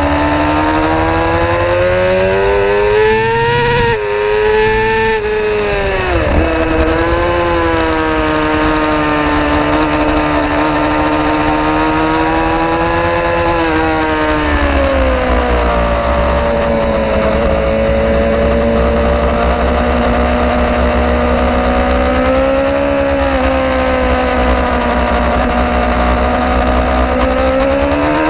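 Suzuki GSX-R 750's inline-four engine pulling hard on track, heard from the bike itself. The revs climb at first, drop sharply about six seconds in, are held fairly steady through long corners with a further dip midway, and rise again near the end.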